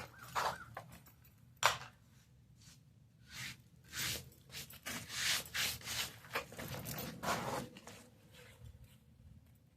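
A series of short scraping strokes on patio tile and mortar, thickest through the middle of the stretch, with one sharp knock about a second and a half in.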